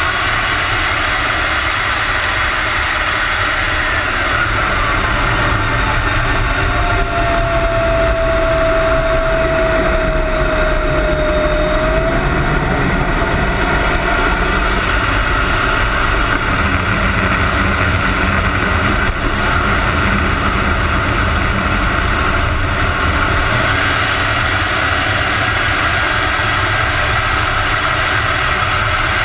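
The onboard jet engine of a radio-controlled Aermacchi MB-339 model in flight, heard from inside the model's cockpit: a steady rush of engine and airflow with a high whine. The whine falls in pitch about 4 seconds in, stays lower through the middle, and climbs back about 24 seconds in, as the throttle is eased back and opened up again.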